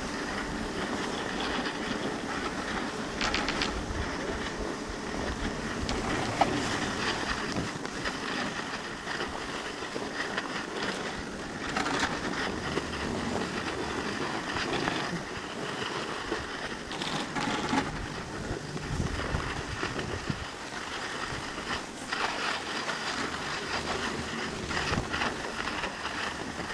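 Skis scraping and sliding over packed snow while being towed up a drag lift, a steady rush broken by scattered clicks and rattles.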